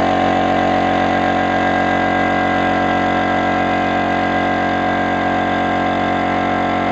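Electric compressor running steadily with a strong, even hum, just restarted by pushing in its thermal cutout switch. The thermal cutout is failing and lets it run only a few seconds before it stops again.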